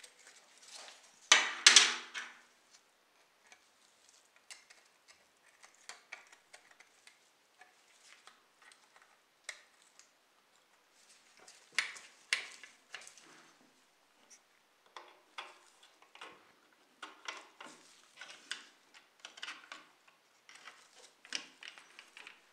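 Plastic and die-cast metal parts of a model car clicking, tapping and rattling as they are handled and pushed together, with a louder clatter about a second and a half in.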